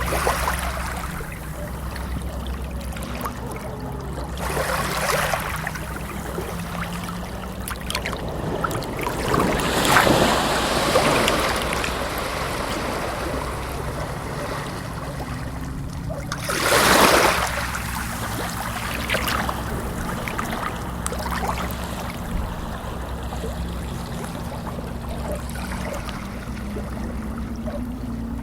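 Water washing in slow swells every few seconds, the loudest surge a little past the middle, over a steady low rumble.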